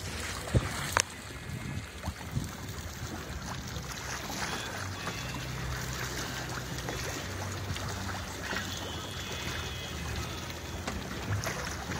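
Choppy sea water lapping and trickling against a small boat's hull, with wind on the microphone and a low steady hum underneath. A couple of short knocks sound in the first second.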